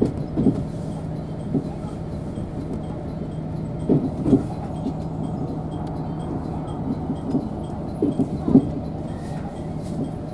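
KiHa 187 diesel railcar of the Super Oki limited express, heard from inside at the front, rolling slowly into a station: a steady low engine hum, with the wheels knocking over rail joints in pairs about half a second apart, three times.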